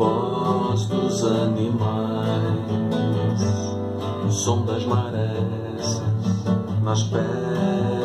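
Nylon-string classical guitar played as a chord progression, notes ringing over one another.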